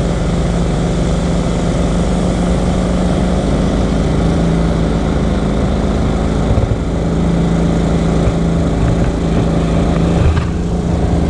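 Boat engine running steadily at speed: a loud, even drone whose pitch holds nearly constant.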